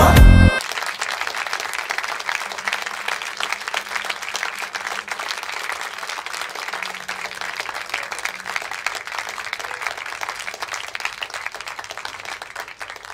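Recorded song music stops abruptly about half a second in, and an audience applauds, the clapping slowly thinning out toward the end.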